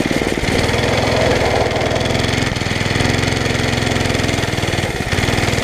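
Briggs & Stratton 5 hp flathead single-cylinder engine running steadily on a go-kart as it is driven, heard from the driver's seat as a fast, even string of firing pulses with small changes in pitch.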